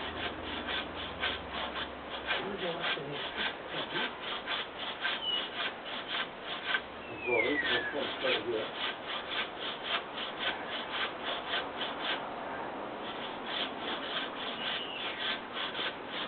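Hand saw cutting through wood in quick, even strokes, about three a second, with a brief pause about three quarters of the way through. A short falling whistle is heard about seven seconds in.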